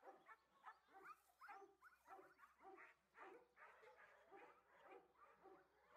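Dogs barking in a quick repeated series, about two barks a second, faint.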